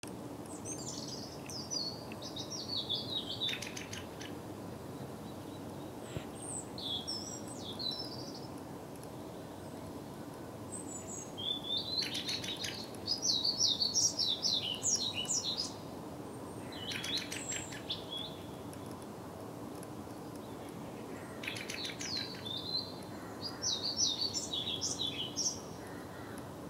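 A songbird singing in short phrases of quick, varied high whistled and twittering notes mixed with brief rattling clicks, about five phrases with pauses of a few seconds between them, over a steady low background noise.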